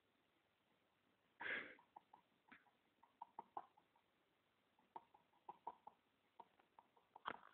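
Red-fronted parakeet (kakariki) bathing: one short splashing flurry about a second and a half in, then scattered light ticks and small splashes, all faint.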